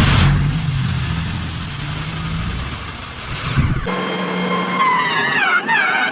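Sawmill cutting white oak: a motor runs under load with a steady high whine that falls away about three seconds in. After an abrupt change about four seconds in, steady high ringing tones waver near the end.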